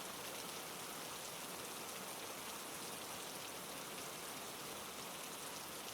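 Steady rain falling: a soft, even patter of raindrops.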